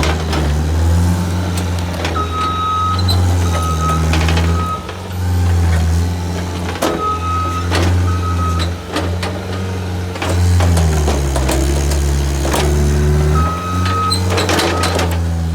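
Skid steer engine running under varying load, its pitch dropping and rising several times as the machine works. Its backup alarm beeps in three short runs, and sharp knocks and cracks come through here and there.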